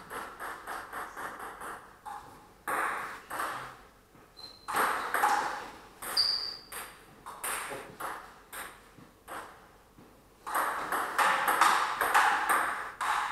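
Table tennis rally: a celluloid-type ball clicking back and forth off the paddles and the table at a quick, even pace, about four clicks a second. Two brief high squeaks cut in near the middle.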